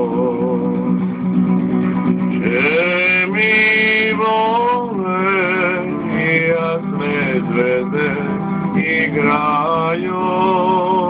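Acoustic guitar strummed steadily while a man sings along in long, wavering held notes. The phone's microphone makes it sound thin, with no treble.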